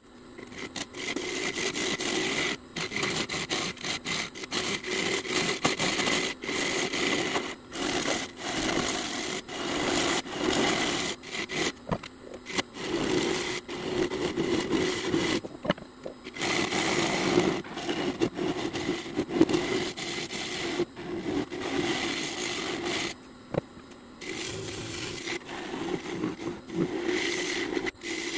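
Turning tool cutting into a spinning maple burl bowl on a wood lathe: a rough scraping and shaving sound that comes and goes in spells of a few seconds as the tool is pressed in and eased off.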